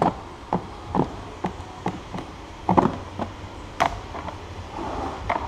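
Rubber seal on a 2013 Audi A3's scuttle panel being peeled off the base of the windscreen: a string of short, uneven clicks and ticks as it pulls free, the sharpest about four seconds in, with a soft rustle near the end.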